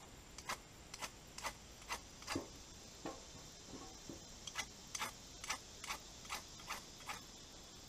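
Ferro rod scraped again and again with a striker, short sharp scrapes about two a second, throwing sparks into fatwood dust tinder that does not catch.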